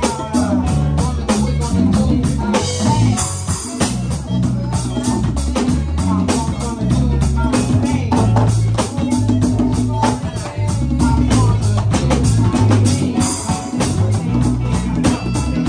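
Live band playing: a drum kit keeps a steady, busy beat under electric guitar and a low bass line that moves from note to note.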